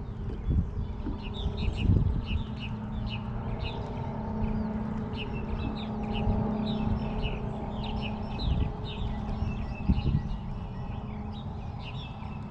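Small birds chirping in quick, repeated short notes, over a steady low hum. A few low thumps come about two seconds in and again about ten seconds in.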